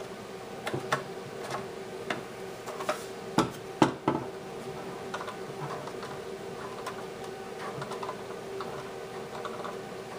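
Scattered clicks and knocks of a Henry U.S. Survival Rifle (AR-7) being taken apart by hand: its metal barrel and receiver parts handled against the ABS plastic stock. The loudest knocks come about three and a half to four seconds in.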